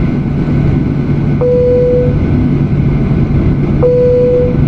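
Airliner cabin noise heard from a window seat: a steady low rumble from the jet engines. A short mid-pitched tone, starting with a click and fading out after about half a second, sounds twice over it.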